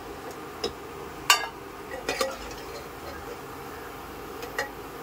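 Steel slotted skimmer clinking against a metal pan and a steel plate as fried gulab jamun are lifted out of hot oil. A handful of sharp clinks, the loudest a little over a second in, come over a steady sizzle of the frying oil.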